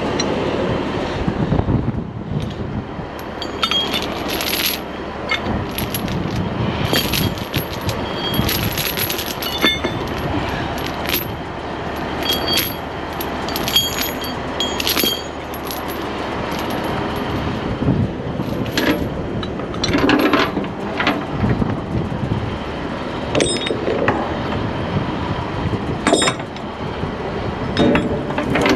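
Rusty steel tie-down chain rattling and clanking as it is handled, dragged and hooked up, in irregular clusters of short metallic clinks.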